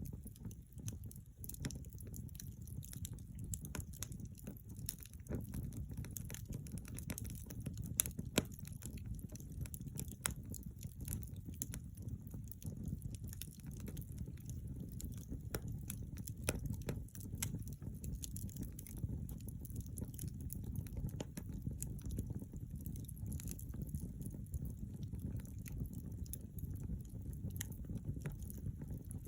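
Log fire burning: a steady low rumble of flames with irregular sharp crackles and pops from the wood, a couple of louder pops about eight seconds in.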